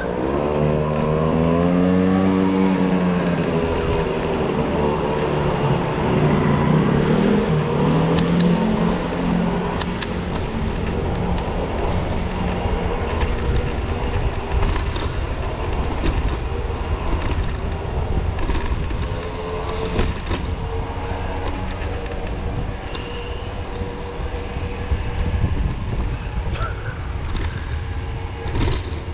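A motor vehicle's engine passing on the road, its note wavering up and down and loudest in the first few seconds before fading away, over a steady rumble of wind on the microphone.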